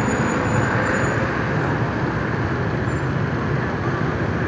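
Steady street traffic noise from many motorbike engines and a box truck passing through an intersection.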